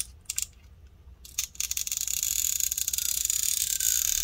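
Stretch-release battery adhesive strip peeling out from under an iPhone 7 battery as it is pulled. A few small clicks come first, then about a second in a steady, high crackling hiss starts and grows louder.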